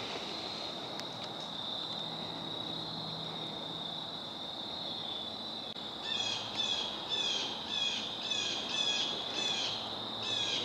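An insect trilling on one steady high pitch in woodland. From about six seconds in, a bird calls a run of short falling notes, about two a second.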